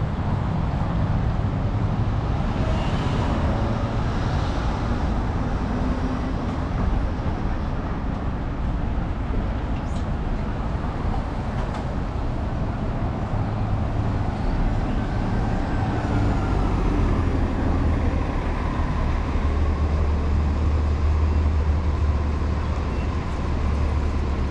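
Downtown street traffic: steady road noise with a deep vehicle engine rumble that grows stronger in the second half, a faint whine rising and falling about midway, and a couple of brief ticks.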